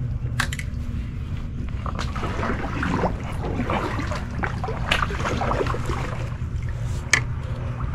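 Water sloshing around a kayak and the rustle and knocks of an angler handling gear while landing a hooked redfish, with a few sharp knocks on the hull, over a steady low rumble of wind on the microphone.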